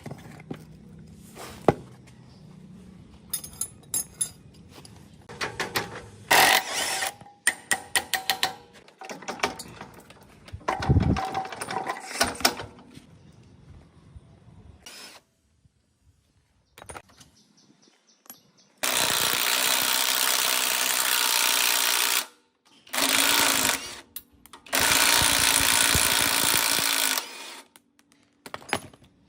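Scattered metal clinks and knocks, then a power tool run in three bursts in the second half, the longest about three seconds, each starting and stopping abruptly.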